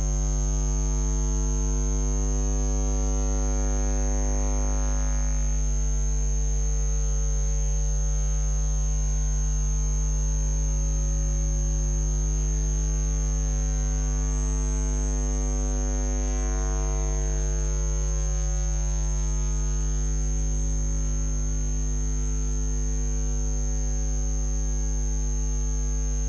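Steady electrical mains hum, buzzy with overtones, with a thin high-pitched whine above it.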